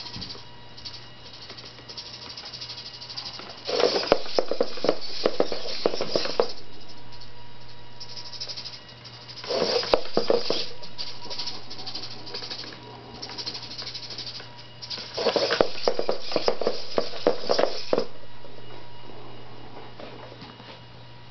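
Hobby servos of a four-legged walking robot buzzing and its feet clicking on a wooden floor as it shifts its body. The sound comes in three bursts of a few seconds each.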